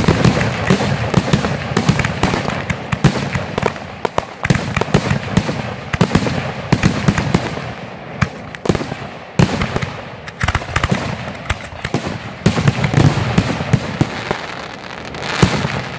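Fireworks finale barrage: aerial shells bursting overhead in rapid succession, their reports overlapping into a dense, irregular string of booms and bangs, with heavier clusters near the end.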